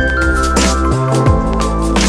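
Electronic background music with sustained synth tones, a bass line and a steady beat.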